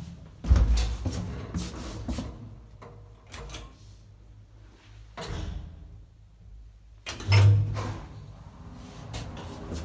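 Old Schlieren traction elevator car: a heavy door thud about half a second in, then clicks and knocks as a floor button is pressed, and a second heavy thud about seven seconds in.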